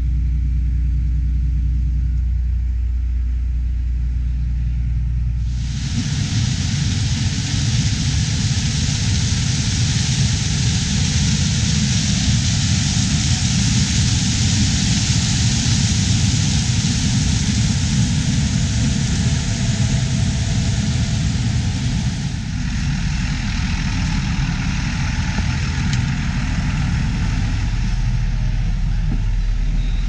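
For the first six seconds, a tractor engine's low, steady hum heard from inside the cab. Then a Case IH 5130 combine harvesting corn, heard from outside, takes over: its engine and threshing make a loud, even rushing noise over a low rumble, easing slightly about 22 seconds in.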